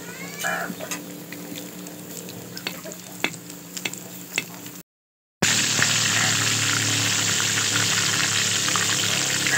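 Battered fish pieces deep-frying in oil in an iron karahi, sizzling, with a slotted spoon clicking against the pan now and then. About halfway through the sound drops out for a moment, then the sizzling comes back louder and denser.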